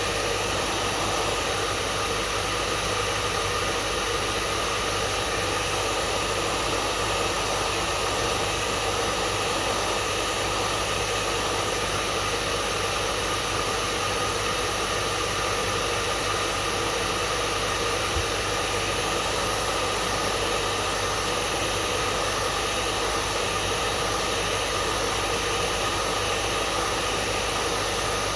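Hair dryer running steadily: an even, unbroken rushing blow of air with a faint steady hum in it.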